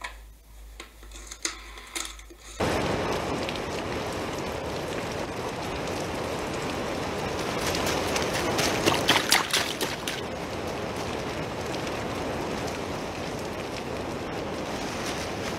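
A few clicks of a telephone being dialed, then a sudden cut to steady heavy rain falling on pavement, with a brief cluster of louder splashes a little past the middle.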